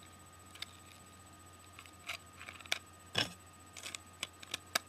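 Scattered sharp clicks and taps of small plastic parts being handled and fitted as an iPod's plastic screen cover is attached, with several quick clicks near the end.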